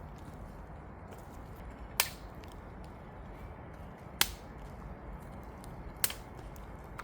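Sticks of firewood being snapped by hand: three sharp cracks about two seconds apart.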